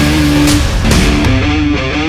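Background rock music led by guitar, with held notes and sharp hits.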